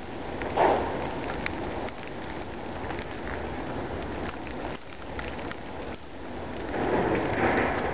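Snowstorm wind blowing steadily, with light ticks of wet snow or sleet striking. Gusts swell about half a second in and again near the end.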